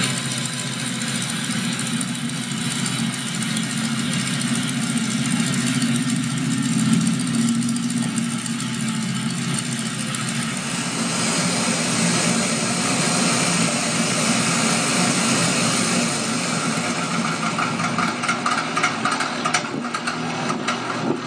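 Toy space shuttle's electronic jet-engine sound effect playing through its small speaker: a steady, noisy engine sound that shifts about halfway through and turns crackly near the end.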